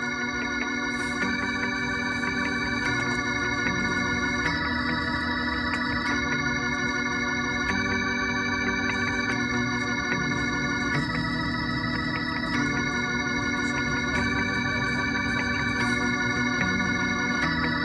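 Music: slow sustained organ chords, changing about every second and a half, with no singing.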